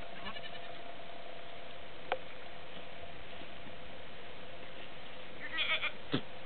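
Fainting goat kid bleating: a short, high, wavering bleat about five and a half seconds in, with a fainter bleat just after the start. A sharp click sounds about two seconds in, over a steady faint hum.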